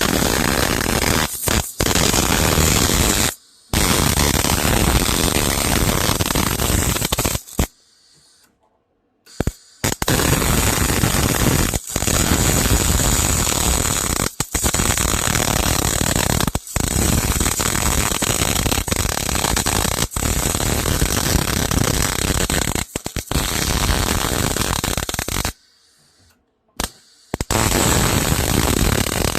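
Electric arc welding on a mower deck bracket: the arc runs in long beads of loud, even noise, stopping briefly several times, with longer breaks between beads about a third of the way in and again near the end.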